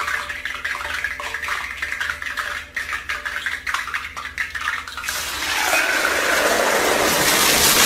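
Hot oil in a lidded steel pot popping and crackling, then a sizzle that swells and grows steadily louder about five seconds in as a handful of fries is dropped into it.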